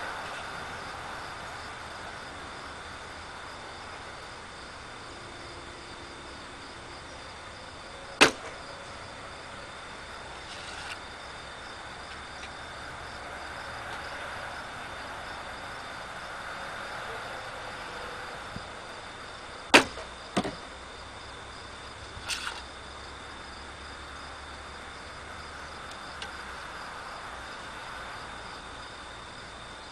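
Steady insect chirring, a thin high drone with a faint pulse above it, broken by four sharp clicks or knocks: one about eight seconds in, two close together near twenty seconds, and a softer pair a couple of seconds later.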